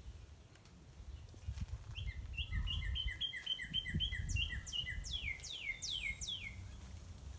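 Northern cardinal singing: a quick run of short repeated notes, then about five loud whistles sliding steeply downward, over a low background rumble.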